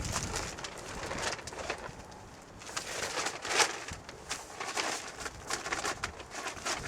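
Plastic fabric shed cover rustling and crinkling in irregular bursts as it is handled and pulled into place.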